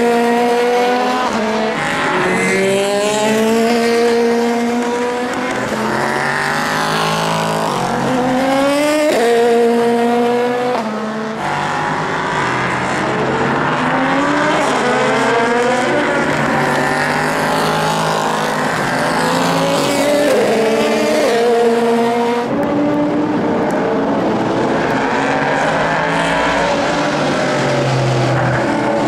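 Prototype race cars (LMP2 and LMP3) running flat out on a soaking wet circuit. Their engines climb in pitch through the gears and drop back at each upshift as the cars pass. The sound changes abruptly twice, about 11 and 22 seconds in.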